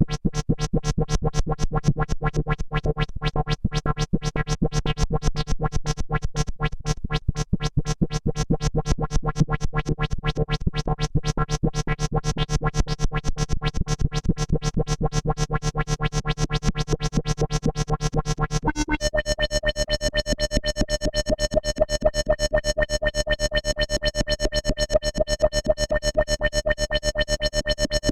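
EDP Wasp synthesizer playing a buzzy tone chopped into a very fast, even pulsing. About two-thirds of the way through, the low note drops out and a higher note takes over, still pulsing.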